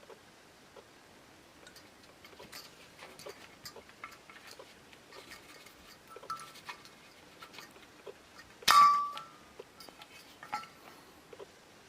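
Small metal parts being handled, with scattered light taps and clicks and one louder ringing metal clink about nine seconds in.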